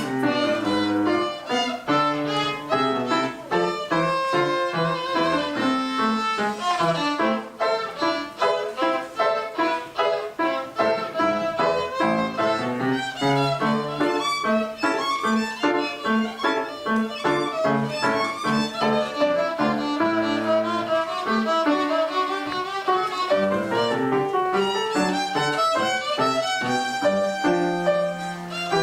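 Violin playing busy, quick-moving passages from the first movement of a concerto for two violins, over a lower accompaniment.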